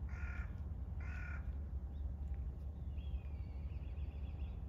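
A crow cawing twice in quick succession, then a high warbling trill about three seconds in, over a steady low rumble.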